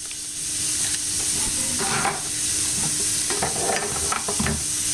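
Floured chuck steaks browning in hot olive oil in a skillet: a steady frying sizzle, with a few light knocks of a utensil about two seconds in and again a little before the end.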